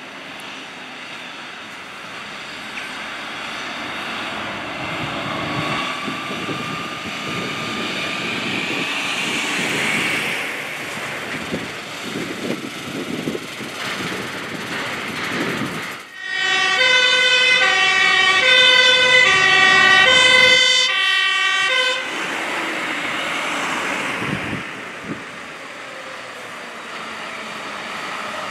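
Fire engine's diesel engine and tyres passing close by, rising and then fading. After a sudden cut, a loud two-tone siren alternates between a high and a low note for about five seconds. Another fire engine's engine noise follows as it approaches.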